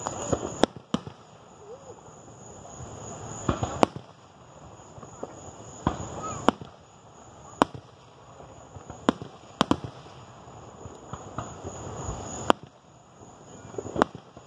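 Aerial fireworks shells bursting overhead: about a dozen sharp booms at irregular intervals, some in quick pairs.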